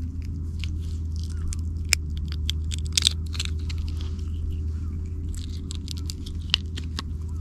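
Swiss Army knife blade prying open a mussel shell: a run of small clicks, cracks and scrapes of shell on steel, with a sharper crack about two seconds in and a cluster around three seconds. A steady low rumble runs underneath.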